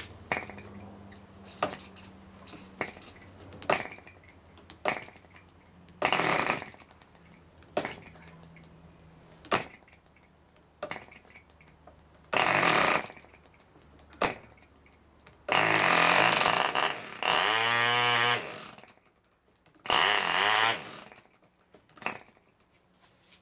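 Mills 2.4 cc model diesel engine, a two-stroke compression-ignition engine, being started by flicking its propeller by hand. Sharp single pops as flicks catch a stroke or two are followed by several short bursts of running, the longest about three seconds, each slowing with a falling pitch and dying out: the engine fires but will not yet keep running.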